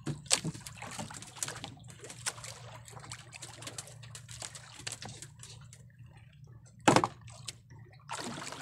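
Water sloshing and lapping against a small boat's hull over a steady low hum, with repeated clicks and crinkles of a plastic bottle being handled. One louder, short sound comes about seven seconds in.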